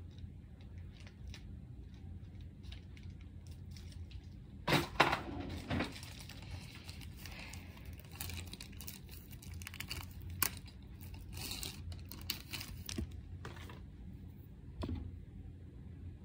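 Cardboard and plastic packaging being opened by hand: scattered clicks and knocks with bursts of rustling and tearing, the loudest about five seconds in.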